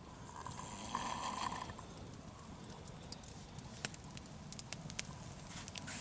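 Quiet night ambience with a brief rasping sound about a second in, followed by scattered sharp pops of a wood campfire crackling.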